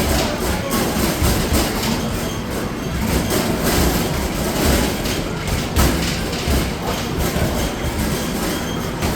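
Arcade basketball machine in play: basketballs thudding against the backboard and rim one after another and rattling back down the return ramp, a constant stream of rapid shots.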